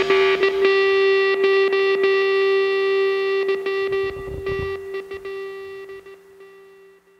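Background rock music ending on one long held guitar note that slowly fades away near the end.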